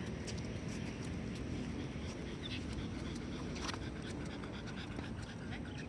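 Skateboard wheels rolling steadily on a hard court surface, a continuous low rumble, with a French bulldog panting on the board and a few light clicks.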